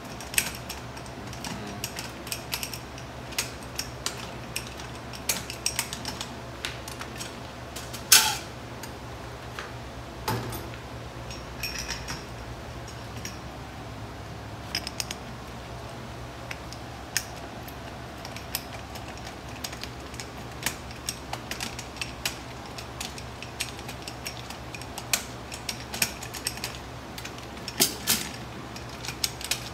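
Metal clicks and clinks of a coin-operated bulk candy vending machine being unlocked and its coins handled, scattered throughout with the loudest clink about eight seconds in, over a steady low hum.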